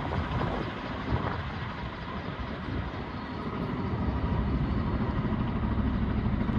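Kamov Ka-32A coaxial-rotor helicopter in flight, a steady rotor and engine noise whose fast beat grows louder about four seconds in.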